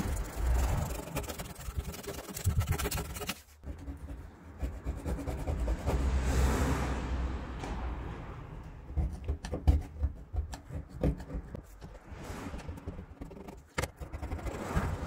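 Hand scraper with a steel blade scraping rust stains off a van's painted steel cargo-area panel: repeated rough scraping strokes, with several sharp clicks of the blade in the second half.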